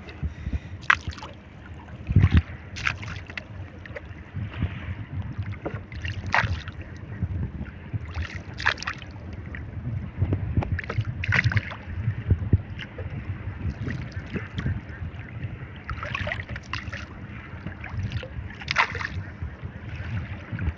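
Water splashing and sloshing around a small fishing boat at sea, in irregular short splashes every second or two over a steady low rumble.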